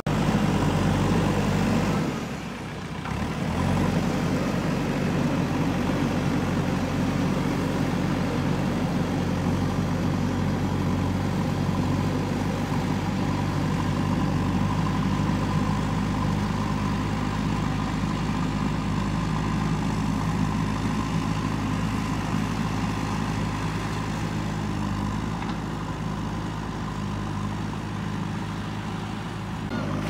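JCB backhoe loader's diesel engine running steadily at working revs, easing off briefly about two seconds in.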